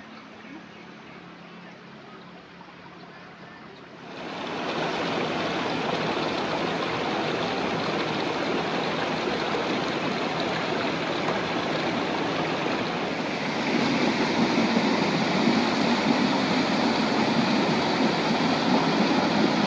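Flowing water rushing steadily. It comes in suddenly about four seconds in and gets louder again a little past halfway.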